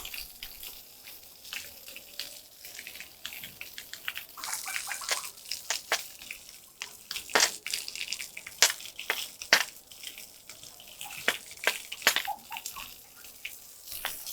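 Water being splashed and swept across a wet, muddy floor, in irregular sharp splashes and scrapes.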